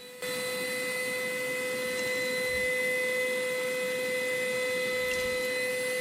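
Cordless vacuum cleaner running at full speed, a steady motor whine over the rush of suction air, getting louder a fraction of a second in as it settles after starting up.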